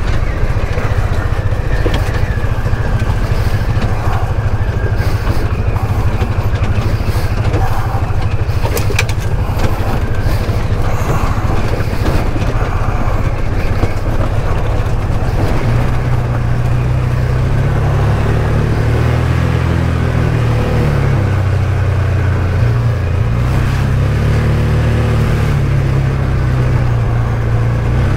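ATV engine running while riding a trail. About halfway through, the engine note gets louder and higher and wavers up and down as the throttle changes, with a few rattles and knocks before that.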